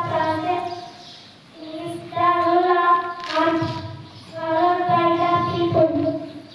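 A boy singing solo into a microphone with no instruments, in three long held phrases with short breaths between them.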